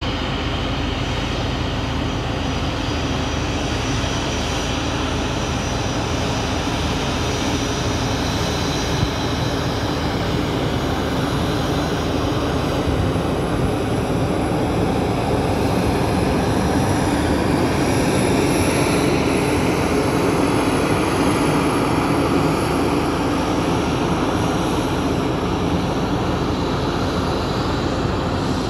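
Jet engines of a Boeing 737-300 (CFM56-3 turbofans) as the airliner moves along the runway past the listener: a steady roar with a high whine on top, growing louder to its peak about two-thirds of the way through and easing slightly near the end.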